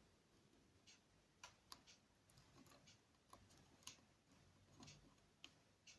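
Faint, scattered small clicks and ticks of fingers fiddling a tiny replacement stylus into a Garrard GC8 phono cartridge, over near silence.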